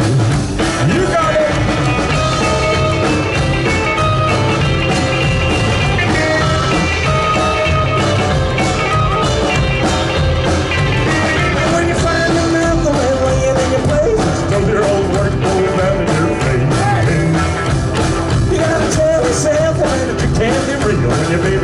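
A live band playing a song with a singer's lead vocal carried over the instruments.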